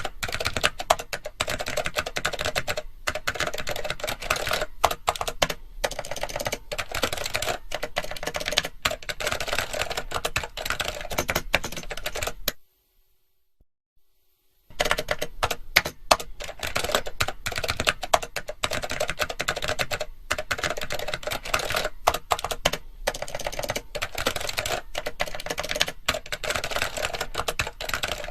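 Fast typing on a computer keyboard, a dense, continuous clatter of keystrokes. It breaks off for about two seconds of silence near the middle, then carries on.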